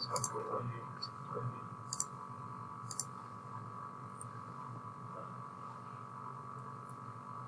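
Computer mouse button clicking three times in the first three seconds, short sharp clicks over a steady electrical hum.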